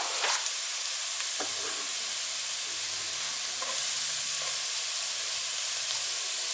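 Diced onion sizzling steadily in hot olive oil in a stainless steel sauté pan, with a few light clicks.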